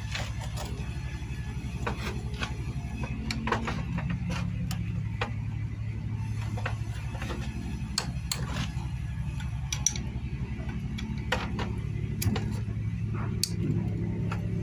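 Scattered light metallic clicks and clinks of tools and engine parts being handled during a motorcycle engine teardown, over a steady low hum.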